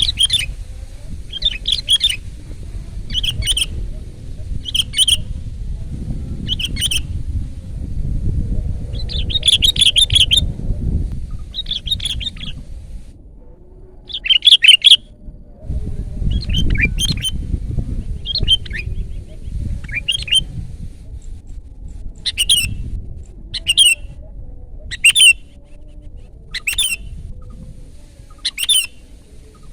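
Sooty-headed bulbul (kutilang) calling loudly: short, sharp chirping phrases repeated about every one and a half to two seconds, over a low rumble.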